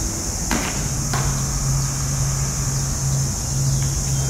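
Outdoor ambience: a steady high-pitched buzz over a low rumble. A low steady hum sets in about a second in. Two brief scuffs, about half a second and a second in, come from shoes shuffling on paving tiles as two people push and step against each other.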